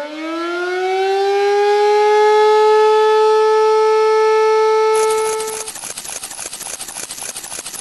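Siren-like sound effect: a rising wail that levels off into a steady held tone and cuts off just under six seconds in. About five seconds in, a dense crackling noise starts and runs on under and after it.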